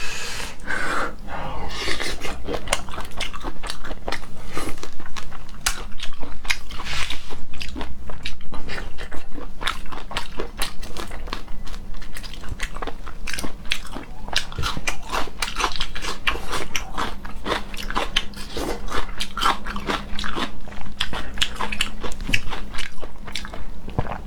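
A person biting and chewing shrimp, with a dense run of loud, crunchy clicks.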